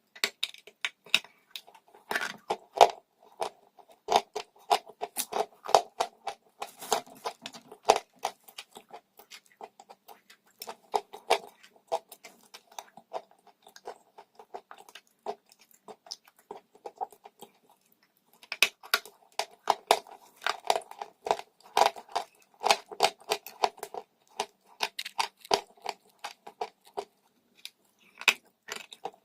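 A person biting and chewing crunchy dry chalk close to the microphone: dense crackling crunches, thinning out for a few seconds midway, then picking up again.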